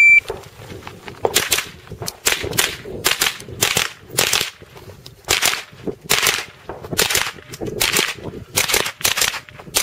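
A shot timer's start beep cuts off at the start. Then a rifle fires a string of about fifteen single shots, roughly two a second, with a short pause about five seconds in.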